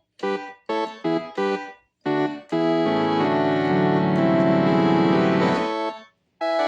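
Yamaha EOS B700 synthesizer keyboard playing a preset sound: a run of short staccato chords, then one long held chord with a bass note that is released about six seconds in.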